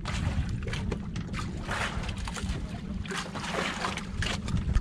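Wind buffeting the microphone in a steady low rumble, with irregular sloshing of sea water against a small boat's hull.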